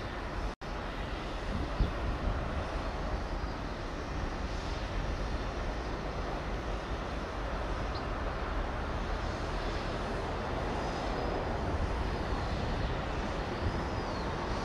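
Steady outdoor rumble of distant traffic and machinery, with hiss. It drops out for an instant about half a second in, and there is one sharp knock just under two seconds in.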